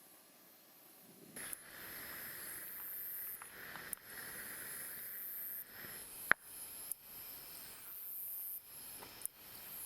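Wood campfire burning: a soft hiss that comes in about a second in, with a few sharp pops. Over it a high trill comes and goes.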